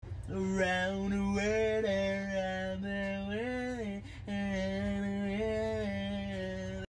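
A single voice singing long held notes in a chant-like drone over a low rumble. The pitch steps up briefly about three and a half seconds in, and there is a short break just after four seconds. It starts and cuts off abruptly.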